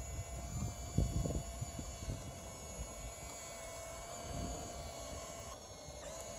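Electric motors of a radio-controlled model excavator whining steadily as it raises its boom and moves on its tracks, with a low rumble about a second in.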